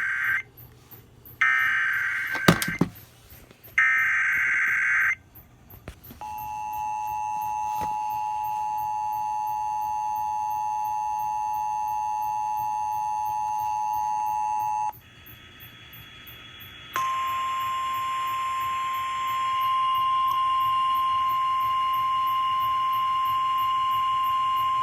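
Emergency Alert System severe thunderstorm warning: three short, screeching bursts of SAME header data, with a sharp click between the last two. Then comes the two-tone EAS attention signal, held for about nine seconds. After a brief gap, a single steady alert tone with hiss runs for about eight seconds, the NOAA Weather Radio warning alarm tone.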